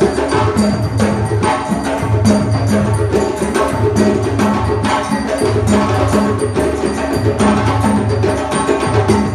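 West African drum ensemble playing a dundunba rhythm: dunun bass drums keep a repeating low pitched pattern with their bells, under fast djembe slaps and tones.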